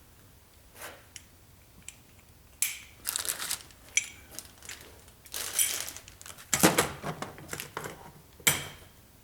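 Clicks, clinks and short rattles of timing-chain tensioner slides and metal hardware being handled and fitted on an engine, irregular, with the loudest knocks about six and a half and eight and a half seconds in.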